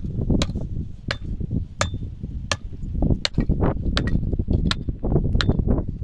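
Axe chopping wood in a steady rhythm: eight blows, about one every 0.7 s, each with a short metallic ring.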